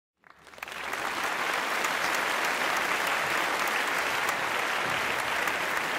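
A congregation applauding, a dense steady clapping that fades in over the first second.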